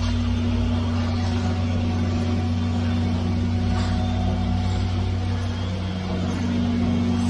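Diesel engine of a concrete pump truck running at a steady speed, a low drone. Its tone shifts slightly about six seconds in.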